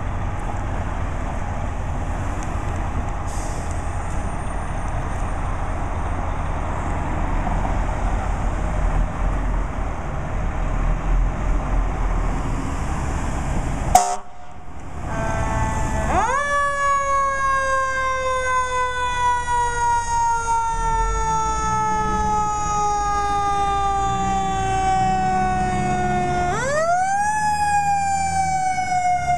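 Fire truck siren, starting about halfway after steady engine rumble and a sharp click: its pitch winds up quickly, then slowly falls for about ten seconds, and winds up again near the end.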